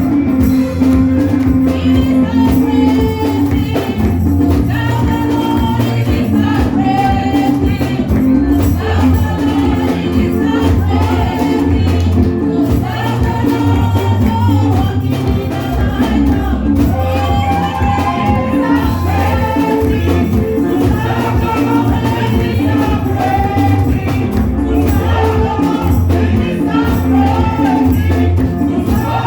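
Gospel praise music with voices singing over a steady bass line and a driving beat with tambourine.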